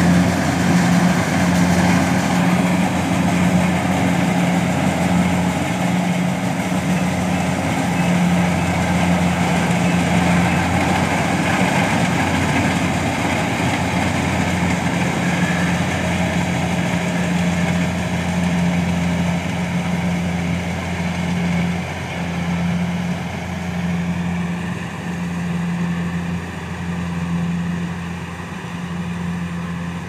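Compact rice combine harvester running steadily while it harvests, a constant engine hum mixed with the rattle and whir of its machinery, growing gradually fainter over the last several seconds as it moves away.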